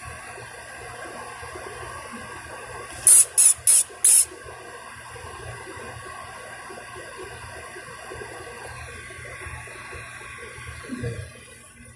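Steady machine hum with several steady whining tones, typical of window air-conditioning units running. About three seconds in, four short, loud, sharp hisses come in quick succession.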